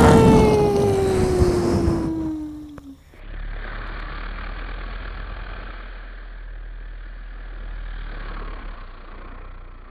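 Sound-effect explosion or burst fading out over about three seconds, with a falling whistle-like tone sliding down through it. A steady rushing noise with a low hum follows.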